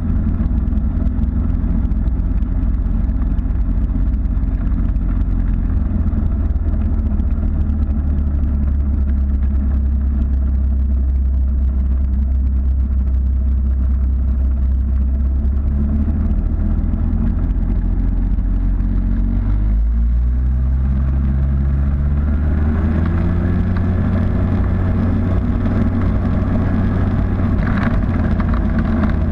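Pioneer Flightstar ultralight's engine and propeller running steadily at low taxi power. About two-thirds of the way through, the engine is throttled up for the takeoff run and its pitch steps higher and holds.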